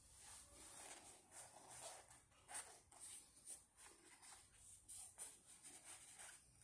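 Faint, irregular rustling and scuffing, a few soft strokes a second.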